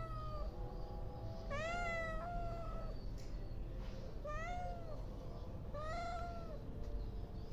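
A street cat meowing: three meows, each about a second long, rising then falling in pitch, with the tail of an earlier meow at the start.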